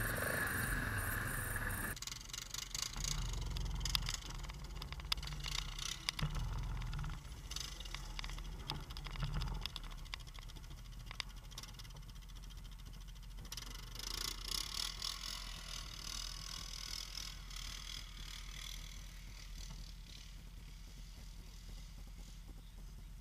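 ATV and side-by-side engines running at low speed on a dirt trail, with scattered knocks and rattles. The first two seconds are louder; after that a steady low engine sound goes on, slowly getting quieter.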